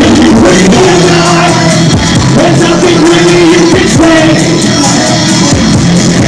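Loud live band music played through a club PA, with singing, a driving drum beat and a held note in the middle.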